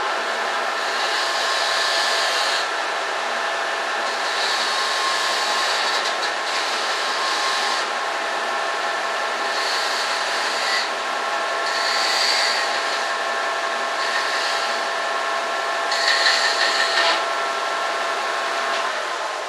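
Electric sander running steadily with a motor whine, its hiss swelling about every two seconds as it is worked against the part. The motor shuts off near the end.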